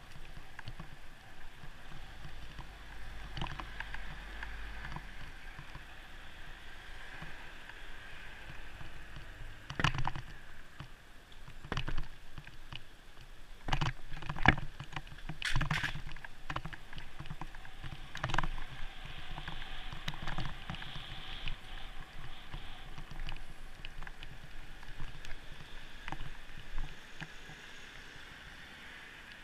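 Muffled wind and road noise heard through a bicycle-mounted GoPro while riding, with a run of sharp knocks and rattles from about ten to twenty seconds in.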